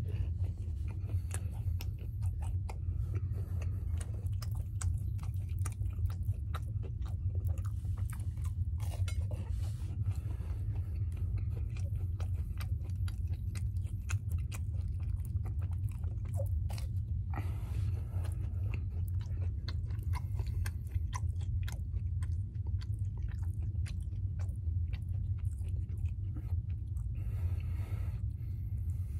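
Close-up chewing and biting of French toast sticks dipped in syrup, with many small wet mouth clicks, over a steady low hum.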